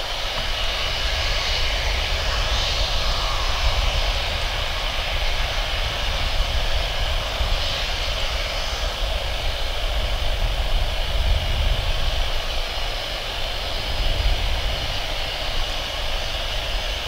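Airbus A320-232's IAE V2500 turbofans running at low thrust as the airliner taxis and turns on the runway. A steady jet engine rumble and rush with a thin high whine over it.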